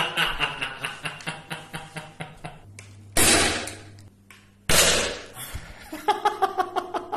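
A man laughs, then an airsoft G&P M203 grenade launcher fires its gas-charged 40 mm grenade shell twice, about a second and a half apart. Each shot is a loud, sudden gas blast that fades over most of a second, and chuckling follows.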